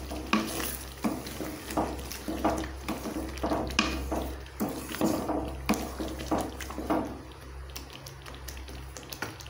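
Wooden spatula stirring thick egg curry gravy in a metal kadai: wet scraping strokes against the pan, about one to two a second. The stirring stops about seven seconds in, leaving a low steady hum.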